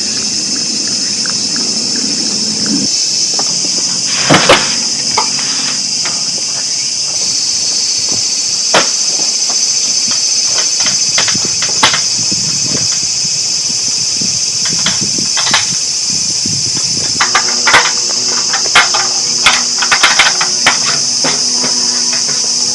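Steady, high-pitched chorus of insects, with scattered sharp knocks and clicks over it, several in quick succession near the end.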